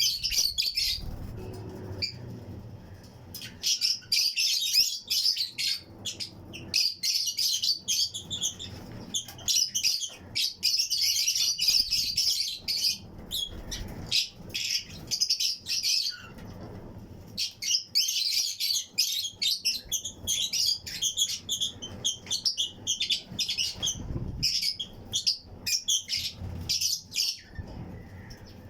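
A colony of Fischer's and lutino lovebirds chirping: rapid, shrill, high chirps come in dense bursts several seconds long, separated by brief lulls.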